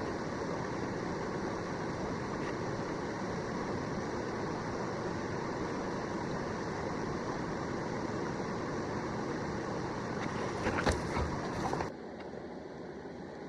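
Creek water rushing, a steady even noise. A few brief knocks or rustles come about eleven seconds in, and the noise drops away abruptly near the end.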